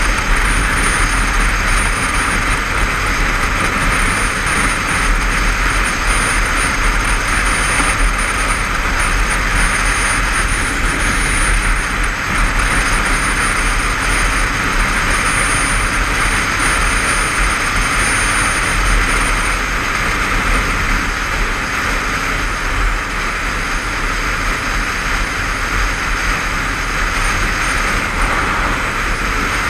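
Steady wind rush on a helmet-mounted action camera riding a Honda CBF500 parallel-twin motorcycle at dual-carriageway cruising speed, with engine and road noise underneath. A thin high whistle runs through the first two-thirds, then stops.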